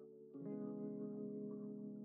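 Soft instrumental intro music with sustained chords; a new, louder chord comes in about a third of a second in.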